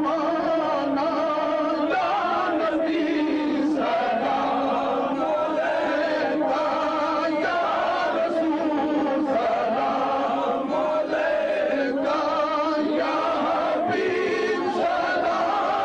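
A group of men chanting together in a continuous, melodic devotional chant at a steady level.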